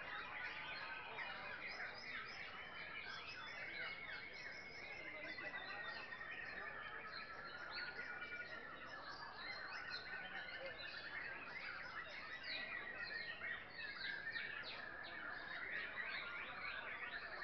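Many caged white-rumped shamas singing at once: a dense, continuous tangle of chirps, trills and whistles, with one long, slowly sliding whistle a few seconds in.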